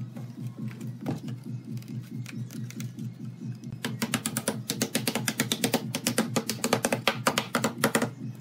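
Rapid taps of a wooden mallet on wood, about eight a second, starting about four seconds in after a few scattered knocks: bent wooden rings are being knocked down into the slots of a round table-top frame. Steady background music plays underneath.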